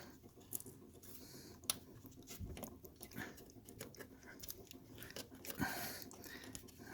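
Faint, scattered clicks and scrapes of hands working metal parts, trying to push a part into place on the steering shaft, with a sharper click a little under two seconds in.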